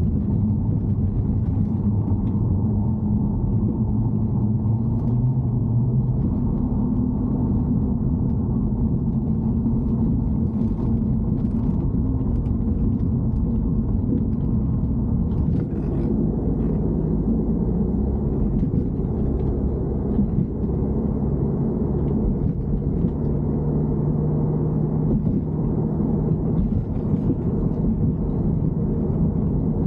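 BMW E90 3 Series driving: a steady low rumble of engine and road, its engine hum drifting slowly in pitch, with faint scattered ticks or rattles over it.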